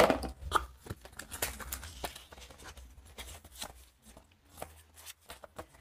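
Paper leaflets (the user manual and warranty card) rustling, with small crackles and clicks as they are handled. The sounds are busiest over the first two seconds, then thin to a few faint rustles.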